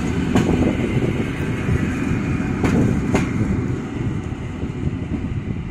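EN57AKM electric multiple unit running along the platform and pulling away, a low rumble with a few sharp wheel clicks over rail joints; the sound fades as the last car draws off.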